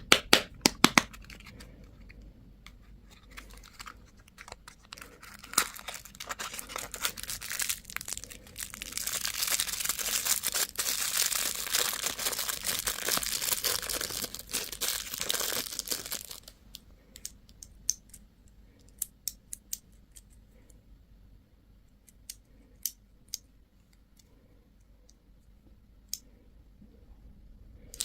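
Candy packaging being crinkled and torn open: a few sharp clicks at first, then a long stretch of dense crinkling and tearing for about eight seconds, followed by scattered small ticks and clicks.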